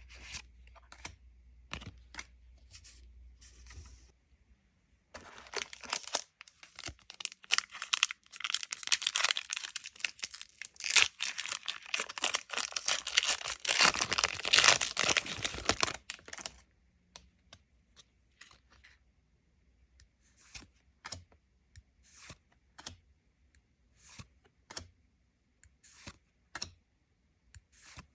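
Plastic or foil wrapping of a trading-card booster pack or box being torn open and crinkled, a dense crackling that lasts about ten seconds. Before and after it come scattered light clicks and taps.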